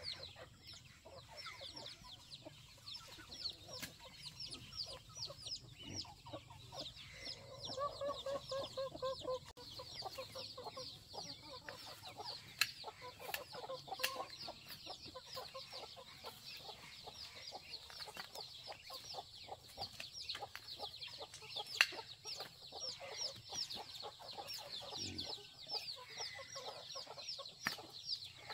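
Poultry flock at feeding: constant rapid high-pitched peeping from young birds, with clucking calls mixed in and a couple of sharp knocks.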